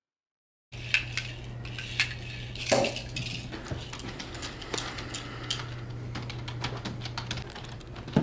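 Silence lasting under a second, then a string of small sharp clicks and clinks of hard objects being handled, over a steady low hum.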